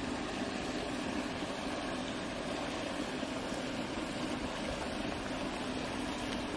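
Steady rushing background noise with a low hum and no distinct events.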